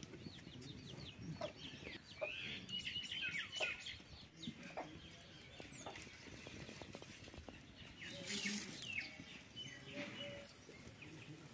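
Birds chirping in quick runs of short, falling high notes, thickest in the first few seconds, with a brief loud rustling burst about eight seconds in.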